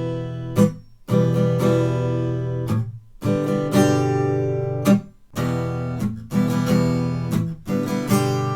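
Guitar strummed in the gallop pattern, triplets of down-up-down strokes with the third accented, moving from an E minor chord to G. Short sharp strikes on muted strings come between the ringing chords, which stop abruptly several times.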